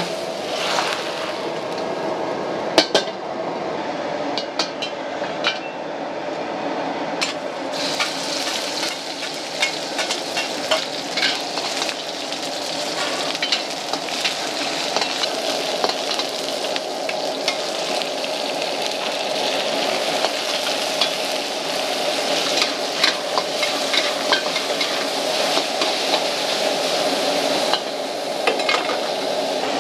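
Stir-frying in an iron wok: a metal spatula scraping and clicking against the wok while the food sizzles over a steady gas burner. The sizzle gets louder about seven seconds in.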